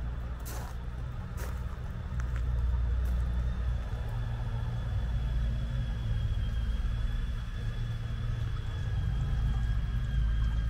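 A vehicle engine rumbling steadily and low, growing louder about two seconds in.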